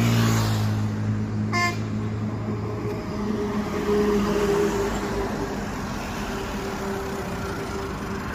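A Massey Ferguson 35 tractor's Simpson diesel engine running steadily as it drives along a busy road, with road traffic noise around it and a short horn toot about one and a half seconds in.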